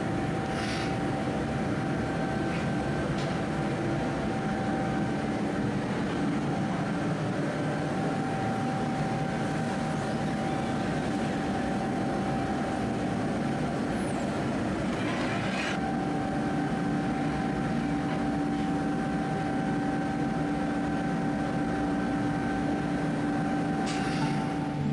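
Steady roar of a gas-fired glassblowing furnace and glory hole, with a constant hum running through it. A few short knocks of tools, about a second in, midway and near the end.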